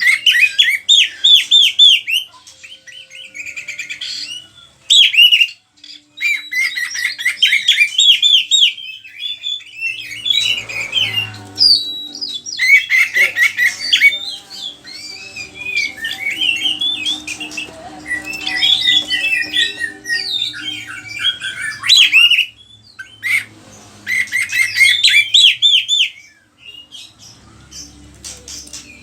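Oriental magpie-robin (kacer) singing at full volume: phrases of rapid, varied whistles and chattering notes, many of them mimicked calls, broken by short pauses.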